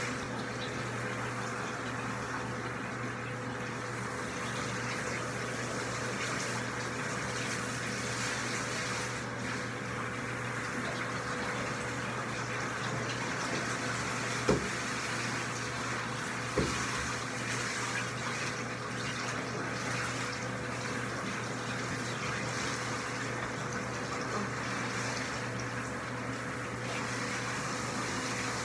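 Water running steadily from a bathtub's handheld shower as a dog is rinsed, an even rush with a faint steady hum under it. Two short knocks come about halfway through.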